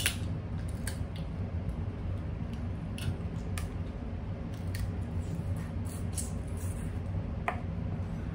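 Crab legs being eaten by hand: scattered sharp cracks and clicks of shell breaking, with sucking and chewing as the meat is pulled out, over a steady low hum.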